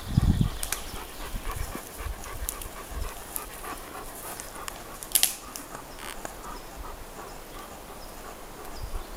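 Golden retriever panting close by, over light rustling of paws on the leaf litter. A short low thump comes at the start, and a sharp click about five seconds in.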